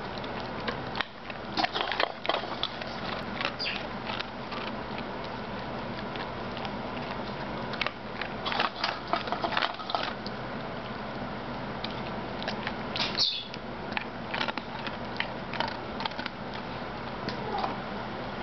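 German Shepherd crunching dry kibble taken from a hand, in several bursts of short crisp crunches over a steady background hiss.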